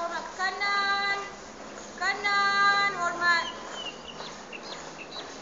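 A girl's high voice calling out marching drill commands: two long, drawn-out calls held on one pitch, then a short one.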